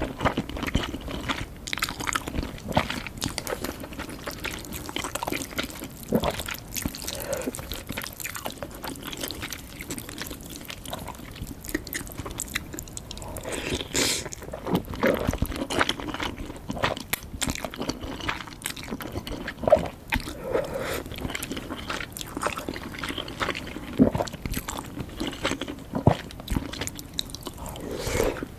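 A person chewing and biting food close to the microphone, with many short crunching and clicking mouth sounds throughout.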